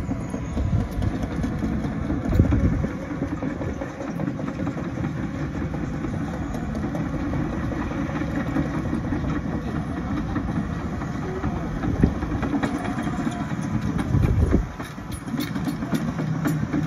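Tracked excavator's diesel engine running steadily as the machine travels and turns on its tracks, with brief louder low surges about two and a half seconds in and again about fourteen seconds in.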